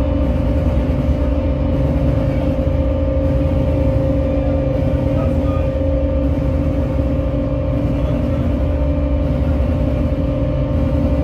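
Live noise music: a loud, steady droning mass of distorted sound, with a held mid-pitched tone over a dense low rumble and no break or change.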